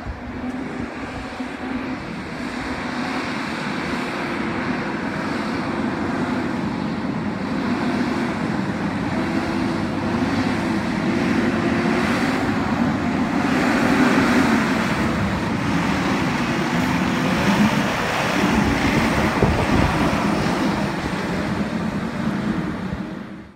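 Diesel engine of a Peterbilt front-loader garbage truck driving up and past, growing louder toward the middle, its engine pitch rising and falling. The sound cuts off suddenly at the end.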